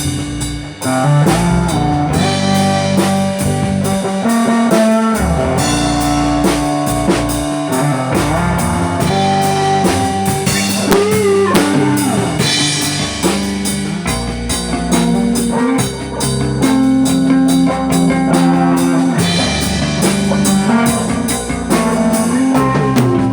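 A band playing a blues-rock piece: guitar over a steadily beating drum kit.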